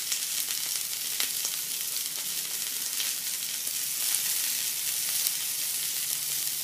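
Venison strip steak searing in an oiled cast iron skillet: a steady sizzle with a few small pops scattered through it.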